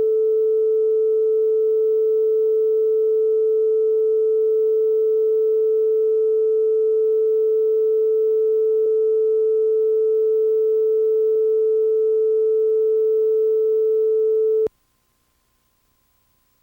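Steady line-up test tone at the head of a U-Matic videotape master: a single pure, mid-pitched tone held at one level. It cuts off abruptly about two seconds before the end, leaving near silence.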